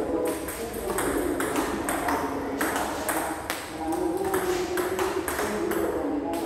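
Table-tennis rally: the celluloid ball clicking off the rackets, one of them faced with pimpled rubber, and bouncing on the table in a quick, even rhythm of about three clicks a second.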